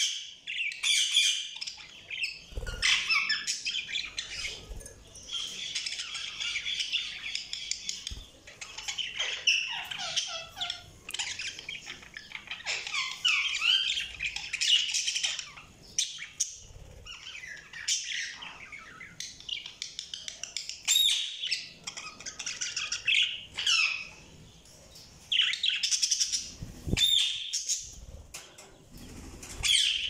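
Budgerigars chirping and warbling in quick, overlapping chatter, with short pauses, plus a few brief low thumps.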